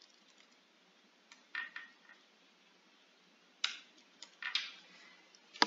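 Computer keyboard keys tapped slowly, a handful of separate keystrokes spread over several seconds, the sharpest one near the end.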